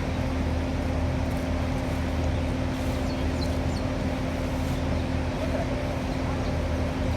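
Steady engine drone: an even, unchanging hum with a low rumble underneath.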